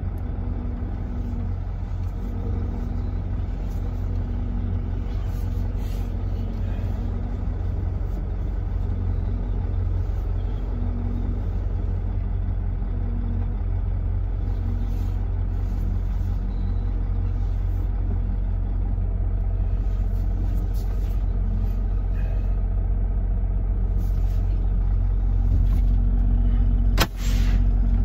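Semi truck's diesel engine running, heard from inside the cab: a steady low rumble that slowly grows louder. A single sharp knock comes near the end.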